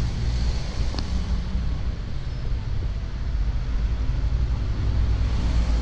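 Steady low rumble of outdoor street noise, with no distinct event standing out.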